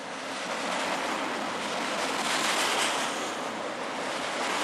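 Double-stack intermodal freight train's well cars rolling past close by: a steady rushing roar of steel wheels on rail, swelling to its loudest about halfway through.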